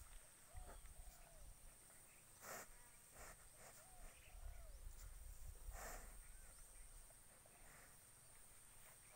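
Quiet outdoor ambience with a water buffalo grazing close by: two short rips of grass being torn, a few seconds apart, over faint scattered chirping and a steady high whine.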